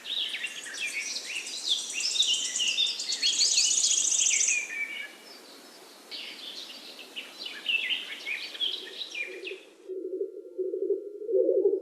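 Morning forest dawn chorus: several songbirds singing at once in overlapping chirps and whistles, with a fast high trill around four seconds in, over a steady outdoor hiss. The birdsong cuts off suddenly near the end and a low wavering hum begins.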